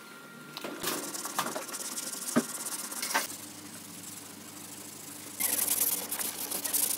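Sandpaper on a hand sanding block rubbing over dried body filler on a car's rear quarter panel. A few light knocks and clicks in the first seconds, then fast, rasping sanding strokes from about five and a half seconds in.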